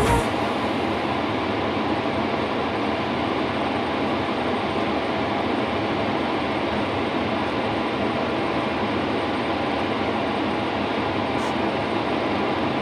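Wheel loader's diesel engine running steadily, an even, unbroken mechanical noise with no changes in pitch or load.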